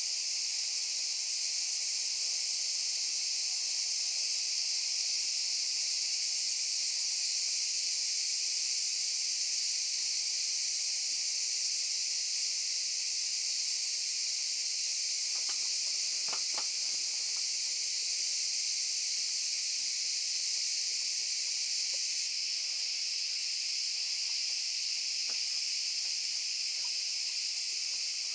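Cicadas buzzing in a dense, steady chorus from pine trees, one unbroken high hiss, with a few faint knocks about midway through.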